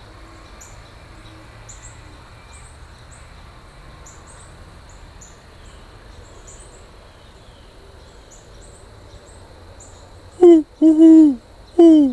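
Owl-style hooting: a quick run of loud, low hoots near the end, each with a short downward bend at its close. Faint, high-pitched insect chirping runs underneath.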